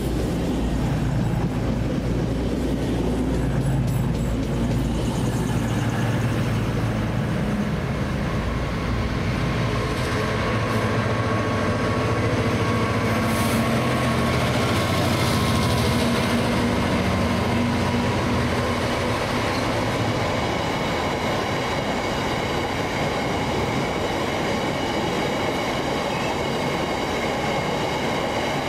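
Freight train running past on the rails, loud and steady. A low drone dominates the first ten seconds or so, and from about twenty seconds in several steady high whining tones from the wheels come in.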